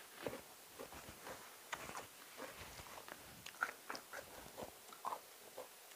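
A person chewing a mouthful of food with faint, irregular wet mouth clicks and small crunches.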